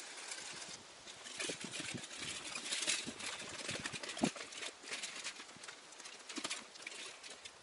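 Footsteps crunching and scuffing over gravelly dirt, with scattered small knocks and one sharper thump about four seconds in.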